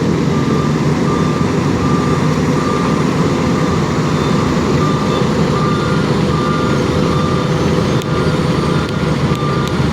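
Heavy road-paving machinery's diesel engine running steadily, with a repeated reversing-alarm beep sounding over it.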